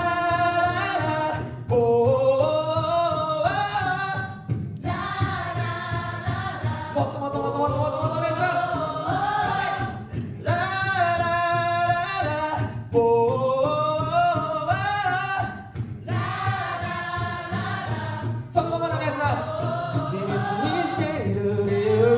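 An a cappella group singing a song into microphones: several voices in harmony over a steady low bass part. The phrases break off briefly every few seconds.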